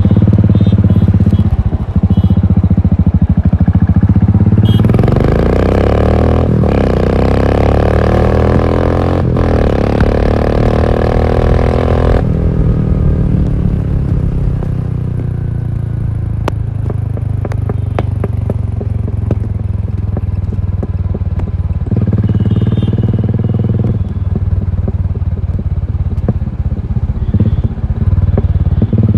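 Royal Enfield Continental GT 535's single-cylinder engine through an aftermarket exhaust, thumping as the bike is ridden. About five seconds in it gets much louder, and the engine note rises and falls for several seconds before settling back to a quieter run with scattered crackles.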